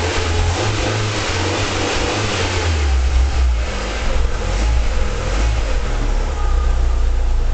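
Fiat Palio 1.3 16v four-cylinder petrol engine running under a homemade PIC-based sequential fuel-injection controller, its revs falling from about 2,100 rpm toward idle.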